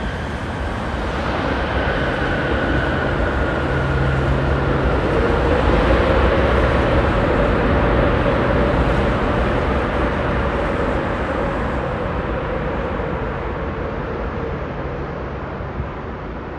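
Lufthansa Boeing 747-8's four General Electric GEnx engines running at high power as the jet rolls down the runway away from the listener. The engine noise swells over the first few seconds, then slowly fades, with a faint droning tone that drifts slightly in pitch.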